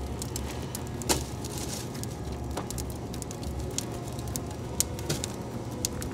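Split wood sticks being laid onto burning charcoal in a steel smoker firebox: a knock about a second in and another a little later as logs go down, with scattered crackling clicks over a steady low hum.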